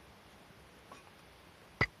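Quiet camp background, then one sharp knock near the end as a blade strikes firewood, part of a run of chopping strokes.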